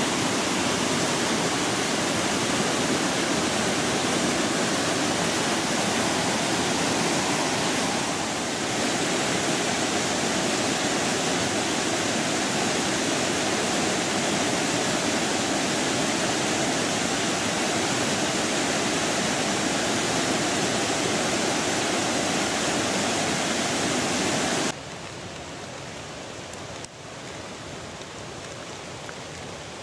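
Waterfall in flood: a heavy, steady roar of rushing water pouring over rock. About 25 seconds in, the roar cuts off abruptly to a much quieter steady hiss.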